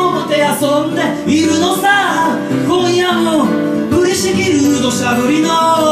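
A man singing a song live, accompanying himself on strummed acoustic guitar.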